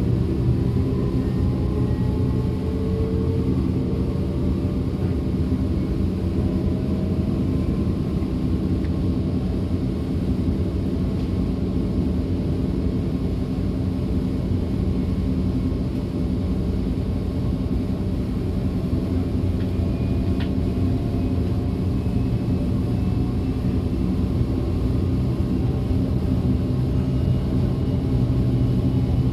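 DB class 425 electric multiple unit running along the line: a steady rolling rumble with faint traction whine tones that slowly rise in pitch as the train gains speed. A single faint click about twenty seconds in.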